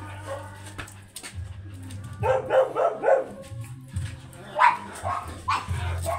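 Small dog yapping: a quick run of about four short yaps two seconds in, then a couple of single yaps near the end.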